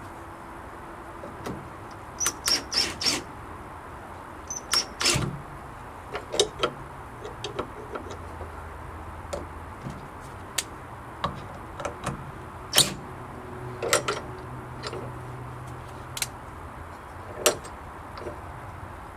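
Irregular sharp clicks and knocks of latch hardware and tools being worked at a wooden gate: a quick run of four a couple of seconds in, then single knocks spread out, the loudest just past halfway.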